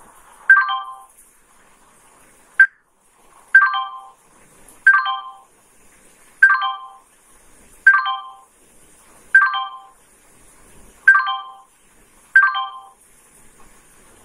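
Computer sound-effect chime, a quick cluster of ringing notes that dies away fast, played eight times about every one and a half seconds, with one shorter blip about two and a half seconds in. It is the interactive worksheet's answer cue, sounding as each answer fills into its box.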